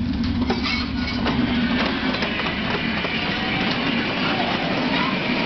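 Gasoline-powered Steamin' Demon ride-on miniature train running along its track: a steady engine hum with irregular clicks from the wheels on the rails.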